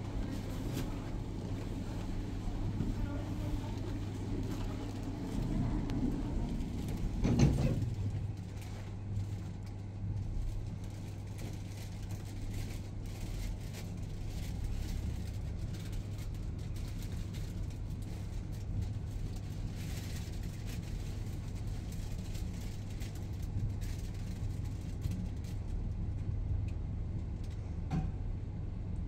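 Schindler lift car travelling, with a steady low hum of the ride throughout. A single sharp knock sounds about seven seconds in, and a brief faint tone comes near the end.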